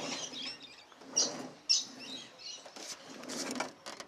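Toyota Previa sliding door rolling along its track on freshly replaced hinge rollers: a rolling rumble with short high squeaks.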